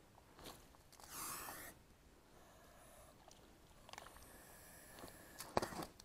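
A downed goose flapping its wings and splashing in shallow bog water while someone wades toward it with sloshing, crunching steps. A brief harsh noise about a second in, and a sharp splash about five and a half seconds in is the loudest sound.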